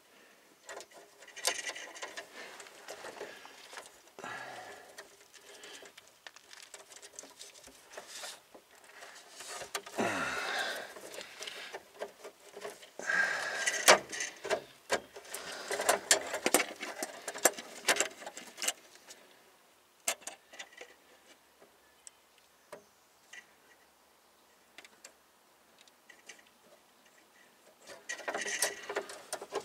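New brake line being handled and pushed into its metal brackets and clips: scattered clicks, taps and scraping rattles of metal line against clips and underbody, with a quieter stretch late on before a last brief rattle.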